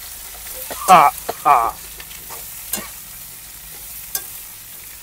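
Sliced ivy gourd frying in hot oil in a metal kadai with a steady sizzle while a steel ladle stirs and scrapes it, clinking against the pan a few times. Two brief wavering high-pitched sounds between one and two seconds in are the loudest moments.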